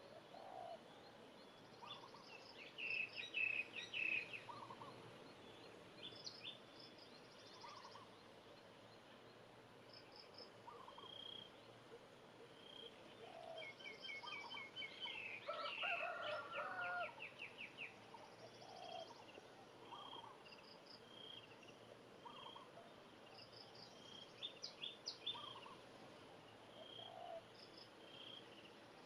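Faint chicken calls: short calls repeat every couple of seconds, and bursts of quick, high chirping trills come a few seconds in, around the middle, and near the end.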